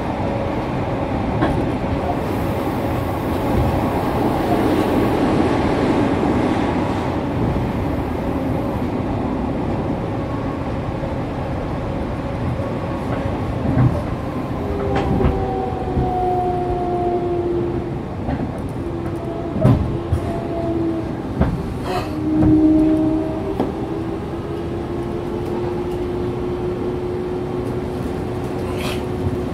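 Fukuoka City Subway 2000 series train running through a tunnel, heard from inside the car as a steady rumble. From about halfway there are whining tones and a few sharp clacks from the wheels passing over rail joints.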